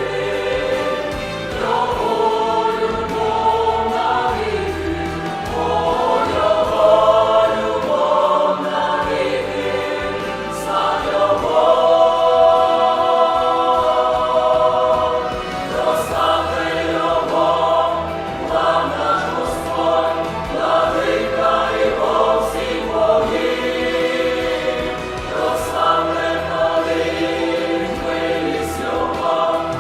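Youth choir singing a hymn in several voices, in long sustained phrases.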